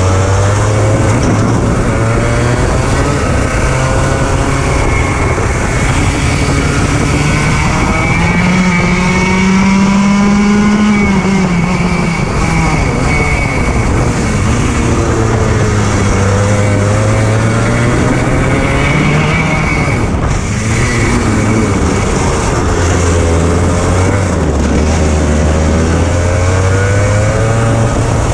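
100 cc two-stroke kart engine of about 18 hp running hard, its revs rising and falling again and again as it accelerates and slows.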